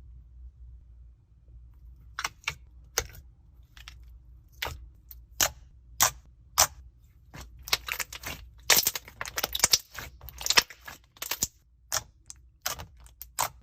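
Slime being squished and pressed by hand, giving irregular sticky clicks and pops, sparse at first and coming thick and fast in the second half.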